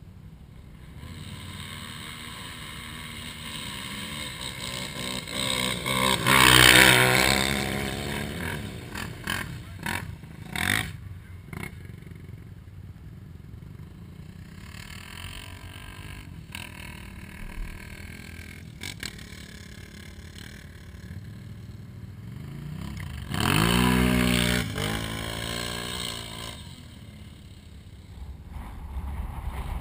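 ATV engines running, with two loud runs, one about six seconds in and one near the end, where an engine's pitch climbs and then falls away. A few sharp clicks come in between.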